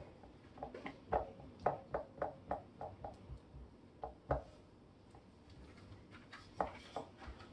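A spatula stirring glue-based slime in a ceramic bowl: short sticky clicks and taps, about two or three a second, with a quieter pause about two-thirds of the way through.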